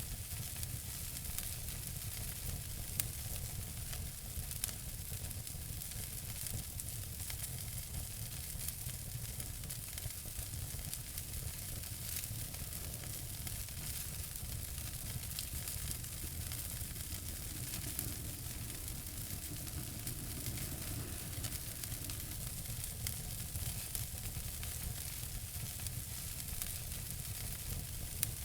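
Wood fire in a fireplace crackling and hissing steadily, with scattered small pops, a few of them louder.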